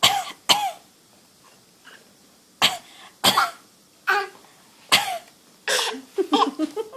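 Repeated short, forced fake coughs, about six sharp ones roughly a second apart, then a quicker choppy run near the end.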